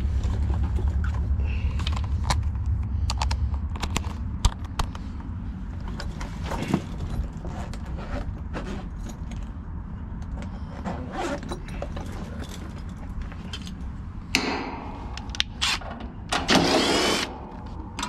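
Cordless driver whirring in two short spells near the end, backing out the screws of an air-conditioner condenser's service panel. Before that, scattered clicks and rattles of tools being handled over a low rumble.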